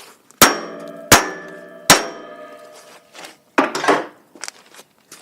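Three ringing hammer blows on the generator's bent metal frame, about three quarters of a second apart, then a duller double knock near the end, as the bent frame is beaten back so that a part can get past.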